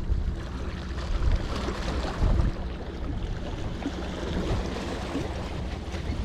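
Wind rumbling and buffeting on the microphone over the outdoor noise of the bay, with a stronger gust about two seconds in.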